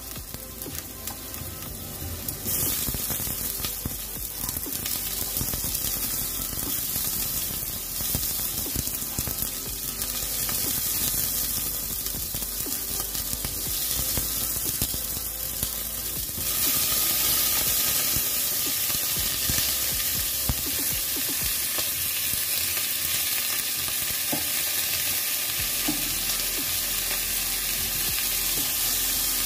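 Chopped onion, garlic and ginger sizzling in hot oil in a pot, stirred with chopsticks. The sizzle grows louder and brighter about halfway through, and by the end pork ribs are frying in the same pot.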